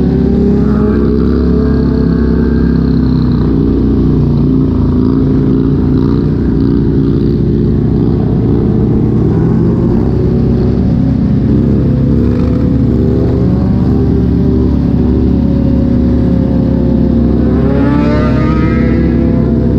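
Motorcycle engines at highway speed, a Harley-Davidson Road Glide bagger's among them, giving a steady, dense engine drone heard close up from a rider's helmet camera. Near the end an engine revs up, its pitch rising.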